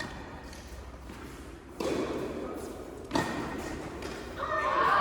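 Tennis balls struck by rackets and bouncing on an indoor court, a few sharp hits that echo in the hall; the loudest comes just under two seconds in and another just after three. Voices start near the end.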